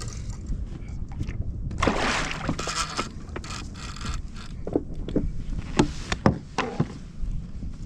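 Steady wind and water rumble on a fishing kayak while a hooked lingcod is fought alongside. A rushing, splash-like burst comes about two seconds in, and a run of sharp clicks and knocks follows in the second half as gear is handled on the kayak.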